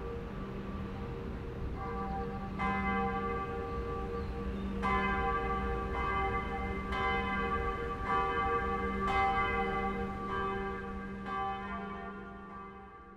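Church bells tolling, struck about every two seconds, each strike ringing on over a steady low hum, and dying away near the end.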